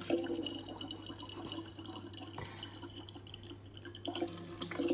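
A thin stream of tap water running from a kitchen faucet into the open neck of an empty plastic water jug, trickling and splashing steadily.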